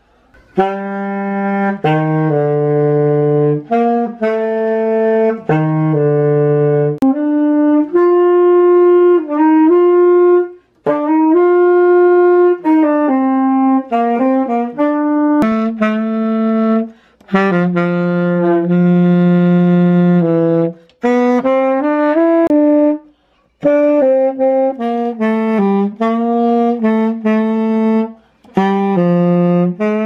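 Saxophone played solo: a melody of held notes with a few quick runs, in phrases broken by short pauses.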